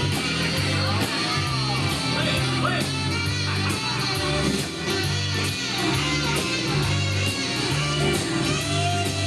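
Rock and roll music with guitar over a steady, repeating bass line.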